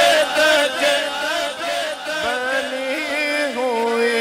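Unaccompanied male voices chanting the melody of an Urdu naat through a PA. The line glides up and down, then about halfway through it settles into one long held note.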